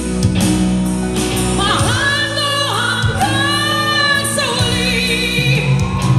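A woman belting an OPM (Filipino pop) song into a handheld microphone, holding long notes with vibrato over live band accompaniment.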